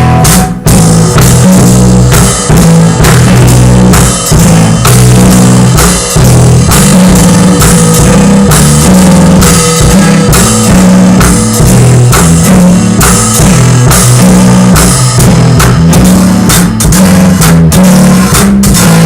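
Live band playing an instrumental passage on drum kit, guitar and bass, with no singing. It is very loud and distorted, picked up right beside the PA speakers.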